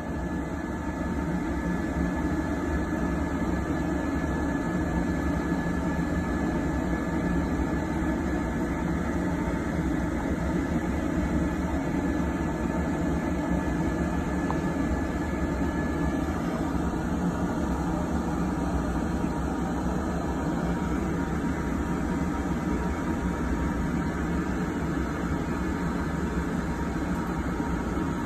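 A steady low machine hum and rush, with a thin high steady tone that stops a little past halfway.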